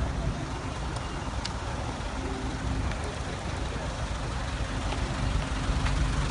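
Steady low rumble of idling vehicle engines and road noise, with a faint steady tone coming in about two seconds in and a few faint clicks.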